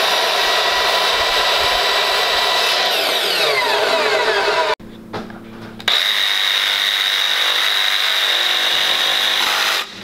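A Kobalt miter saw cuts through a wooden table leg, its pitch falling as the blade winds down. After a short gap, an oscillating multi-tool buzzes with a steady high whine as its blade plunges into the wood to cut a notch.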